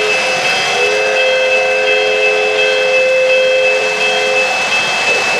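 Lionel O-gauge model train rolling past on three-rail track, with the running rumble of the wheels and a steady high whine. Over it the locomotive's electronic sound system sounds a two-note steam whistle, which pauses briefly near the start and stops about four and a half seconds in.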